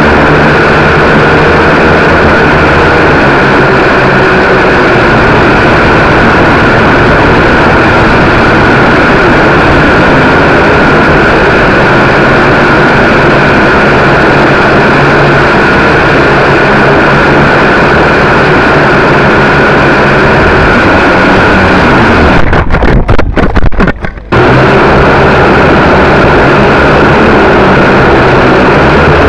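Electric motors and propellers of a small radio-controlled quadcopter, heard through its own onboard camera: a loud, steady whine with a rushing hiss. About 22 seconds in the sound breaks up and dips for a couple of seconds, then steadies again.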